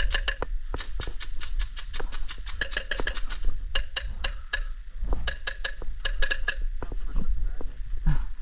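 Airsoft gunfire: sharp clicks and cracks in quick irregular clusters of several shots a second, with pauses between bursts, over a steady low rumble.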